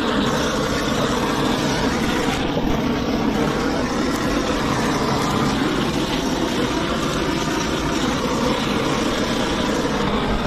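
A loud, steady, engine-like running noise that does not change throughout.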